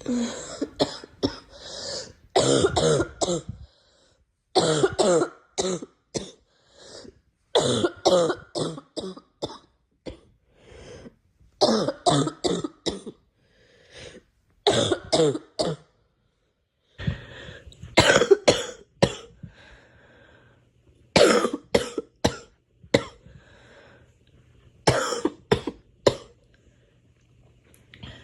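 A girl coughing over and over in fits of several quick coughs, with a new fit every few seconds and short quiet gaps between them.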